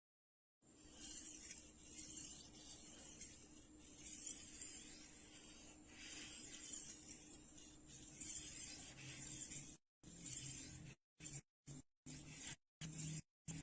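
Quiet, rasping scrape of a kitchen knife blade being sharpened on a rolling knife sharpener's diamond or ceramic disc, in uneven strokes. From about ten seconds in, the sound is chopped into short pieces with dead silence between them.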